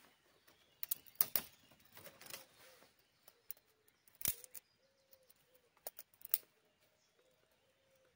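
Dry twigs and branches snapping and crackling in a series of sharp, irregular cracks, the loudest a little past four seconds in. A faint wavering tone joins in the second half.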